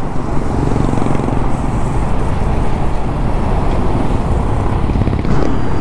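Motorcycle under way in traffic: the engine runs steadily under a dense rush of wind and road noise. The level lifts slightly near the end.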